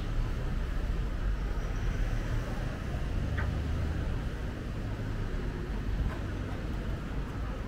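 Steady low rumble of city street traffic, with a short high chirp falling in pitch at the very start.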